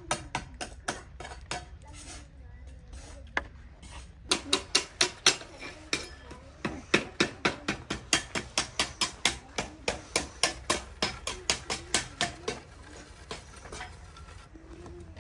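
Steel hand trowel tapping wet cement onto a pot mould, a quick run of sharp clicks about three to four a second, with a short pause a few seconds in, stopping about three seconds before the end.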